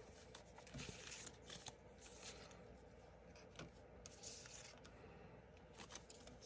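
Faint rustling and light scraping of die-cut cardstock flower embellishments being picked up and slid across patterned paper, with a few soft taps.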